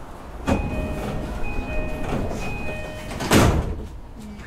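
Door-closing chime on an E233-series 5000 EMU: a high note and a low note taking turns three times. The sliding doors then shut with a loud thud about three and a half seconds in.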